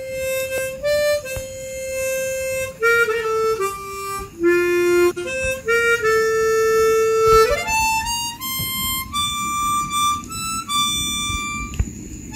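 Harmonica playing a slow melody of held notes. About two-thirds of the way through, the tune moves up to higher notes.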